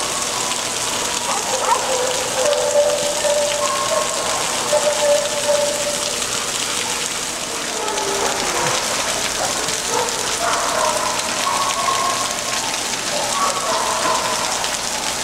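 Splash-pad water jets spraying up and pattering back onto wet pavement, a steady rain-like hiss. Short high-pitched sounds, each held about a second, rise over it now and then.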